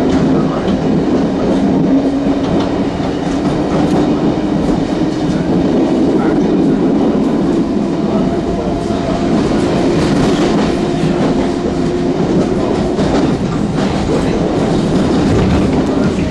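London Underground A Stock train running, a steady loud hum with a few held tones, with the clickety-clack of wheels over the rails.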